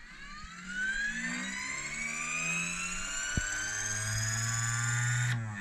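Belimo LF24-SR spring-return actuator driving back to its closed position with its power cut: a geared whine that rises steadily in pitch for about four seconds over a low hum, then stops suddenly near the end.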